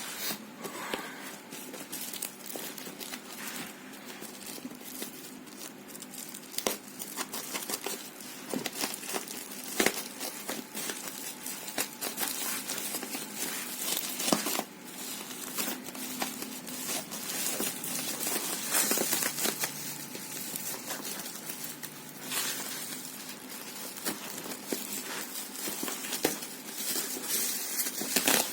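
Packaging being opened by hand: continuous crinkling and tearing, with scattered sharp clicks and knocks.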